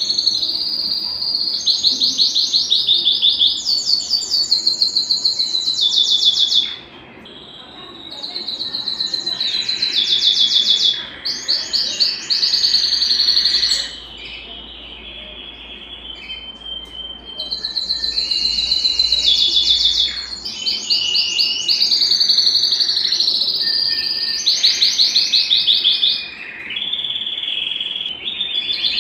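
Domestic canary (Belgian canary) singing a long song of fast trills, each a rapid run of repeated notes, moving from one trill to the next. The song drops away briefly about seven seconds in and goes quieter again for a few seconds past the middle.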